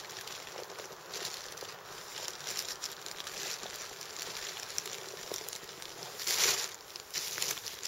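Plastic tarp and clothing rustling and crinkling as a person shifts about and settles into a bivouac, with a louder rustle near the end.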